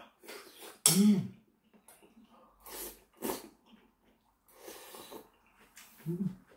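A person slurping instant ramen noodles and broth: several short slurps, the loudest about a second in, with a couple of short hums in between.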